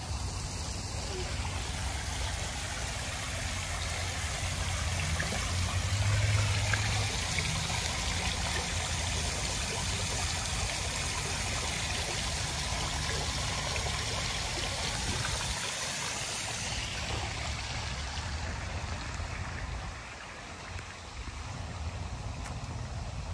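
Water running steadily into a reflecting pool from a water feature, a constant splashing rush that dies down near the end.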